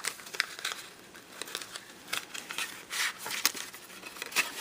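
Hands rustling and crinkling packaging while taking out a handmade artist trading card: a string of short, irregular crackles.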